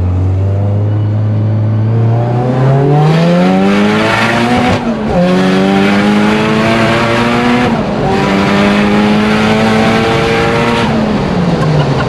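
Nissan Silvia S15's fully forged, turbocharged SR20 four-cylinder accelerating hard, heard from inside the cabin: the revs climb, break off at two quick upshifts about five and eight seconds in, pull up again after each, then drop as the throttle is lifted near the end.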